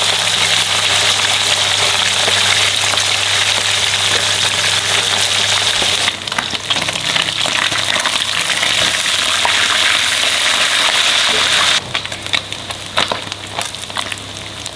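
Pieces of fish deep-frying in hot oil: loud, steady sizzling that starts abruptly as the fish goes in and dips briefly about six seconds in. Near the end it settles into quieter crackling with separate pops.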